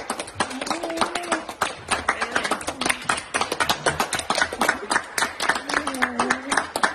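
A person clapping their hands in quick, steady succession, many claps a second.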